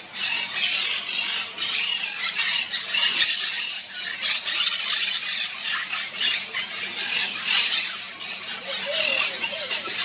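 Monk parakeets squawking and chattering: a constant din of short, harsh calls.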